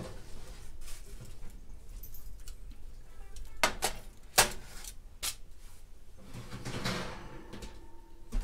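Foil-lined metal sheet pan being set down on a stovetop: a few sharp clanks about four seconds in, the loudest of them a single knock, then a longer rustling scrape.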